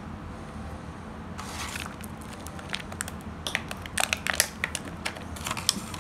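Clear plastic blister packaging crinkling and crackling as it is handled and opened: a run of sharp crackles starting about a second and a half in and growing denser in the second half.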